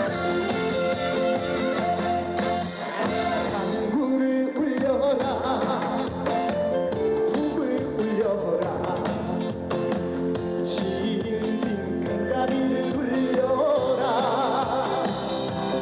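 Live trot song: a male singer, singing with vibrato in phrases, over a band backing track with a steady beat.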